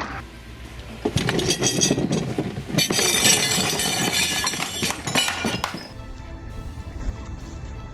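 Music, with a loud clattering, clinking crash from about a second in until past the middle, as of things breaking.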